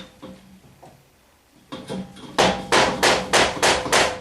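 Hammer blows driving a wooden stick, used as a drift, against a stuck part: one blow, a pause, then a run of about eight quick blows, roughly three a second, each with a short metallic ring. The part is stuck and does not move under these blows.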